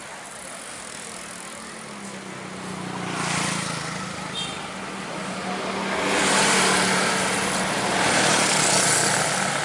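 Large diesel coach buses driving past close by: a low engine drone builds from about two seconds in, with loud tyre and air rush growing to its loudest in the second half.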